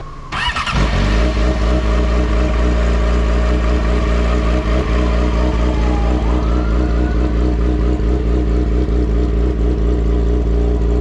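Yamaha sportbike engine cranked on the electric starter and catching in under a second, then idling steadily.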